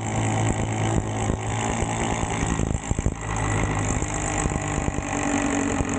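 Milwaukee cordless impact tool running steadily under load, driving a nut on a display bolt.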